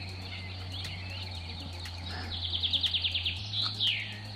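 Songbirds singing: scattered chirps, a rapid trill of about ten notes in the middle, then a short falling call near the end, over a steady low hum.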